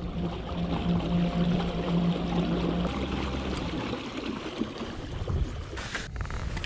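Water rushing and splashing along the hull of a fishing kayak moving forward. A low steady hum runs under it for the first three seconds, then stops.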